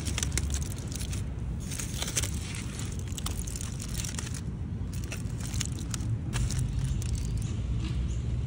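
Aluminium foil crinkling and crackling as it is unwrapped from around a sandwich, in many short irregular crackles, over a steady low rumble.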